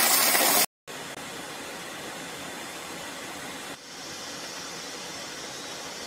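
Rushing water of a small waterfall for under a second, cut off abruptly, then a steady even rushing hiss of jet aircraft in flight.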